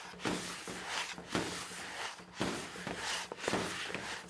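Hands kneading a crumbly corn-flour dough in a plastic bowl: irregular soft squishing and pressing, with a few dull knocks of the dough against the bowl.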